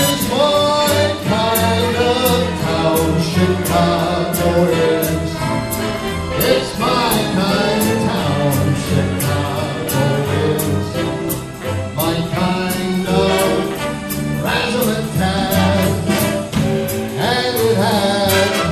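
Big band with saxophones, brass, strings, upright bass and drum kit playing live at a swinging tempo.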